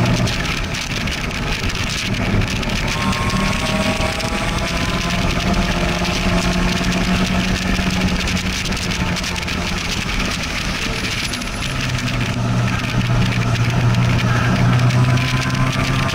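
Sports car engine pulling steadily at track speed, heard from inside an open-top convertible with wind noise over the microphone. About twelve seconds in, as the car slows, the engine note drops lower and grows a little louder.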